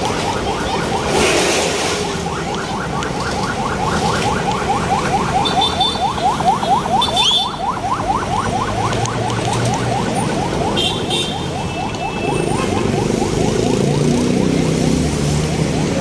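A rapidly repeating rising electronic chirp, about five a second, like a car alarm, over steady street traffic noise; the chirping fades out a little past halfway.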